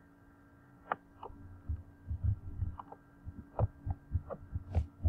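Scattered clicks of a computer mouse and keyboard as text is copied and pasted, about seven in all, with soft low thumps between them over a steady faint electrical hum.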